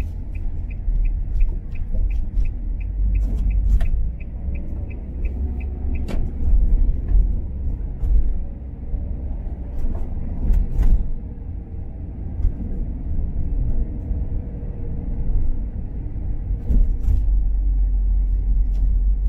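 A car driving, with a steady low rumble of engine and road noise. A light ticking, about three ticks a second, stops about six seconds in, and a few sharp knocks come through.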